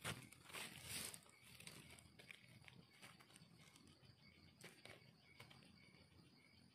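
Faint scratching and crumbling of dry soil as fingers dig the earth away by hand around a termite mushroom. A soft knock of a digging tool into the ground comes right at the start, and a small click about four and a half seconds in.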